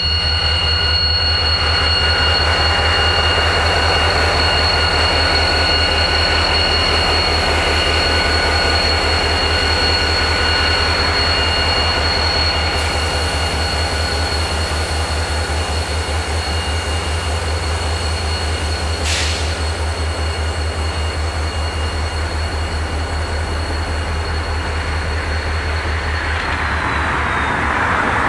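Freight train of intermodal spine cars and EMD diesel locomotives rolling slowly through yard track, wheels squealing in steady high tones that slide down and die away near the end, over a steady low diesel rumble. A brief hiss cuts in about two-thirds of the way through.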